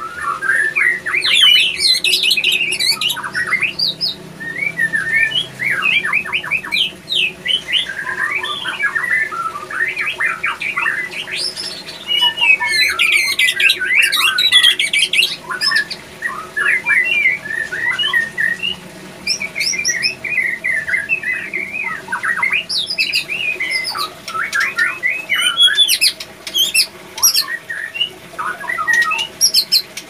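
Male white-rumped shama singing hard, a long run of rapid, varied whistled and chattering phrases with short breaks between bursts. Such heavy singing is a sign of a male in breeding condition.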